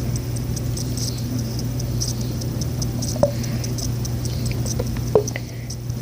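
Homemade slime being worked and squeezed: soft sticky patter and ticking, with two brief squeaks about three and five seconds in, over a steady low hum.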